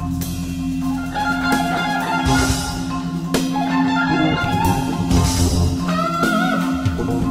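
Jazz fusion quintet music from bass clarinet, guitar, marimba, double bass and percussion. A low note is held under a winding melody, with percussion strokes throughout.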